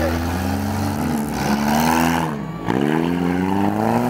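Demolition derby car's engine revving under load, its pitch sagging and climbing again, with a short drop a little past the middle before it winds back up.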